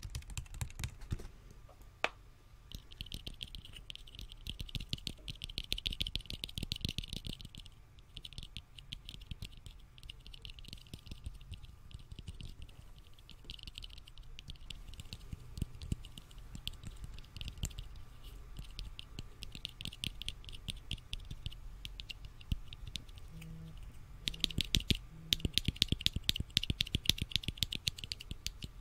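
Small white plastic bottle caps tapped and clicked close to the microphone in quick, typing-like runs of clicks. The clicking is busiest a few seconds in and again near the end.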